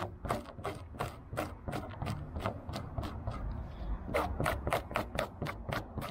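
An eraser scrubbed back and forth over glued aircraft covering fabric, lifting off excess glue: a steady rhythmic rubbing of about three strokes a second.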